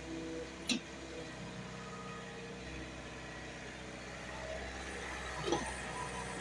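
JCB excavator's diesel engine running steadily, with a sharp knock about a second in and a few short clatters near the end.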